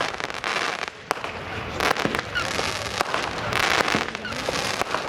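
Fireworks display: a rapid string of sharp bangs from bursting shells, several a second, mixed with stretches of crackling.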